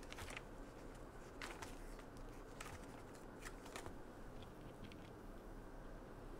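Faint crinkling of a plastic zip-top bag as pieces of biscuit dough are dropped into it: several short rustles a second or so apart, over a steady low room hum.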